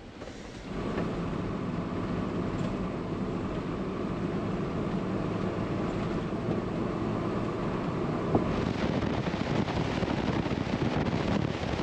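A Jeep cruising on a paved road: steady engine and tyre noise heard inside the cab. About eight and a half seconds in it turns to a louder rush of wind and tyre noise from outside the vehicle.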